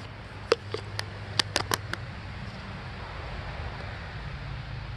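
About seven sharp clicks and taps of close-up handling in the first two seconds, then only a steady low background rumble.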